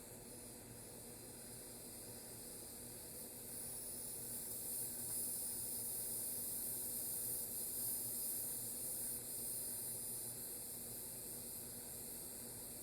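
Wind blowing: a steady high hiss that swells in a gust about four seconds in and eases off near the end, over a faint steady hum.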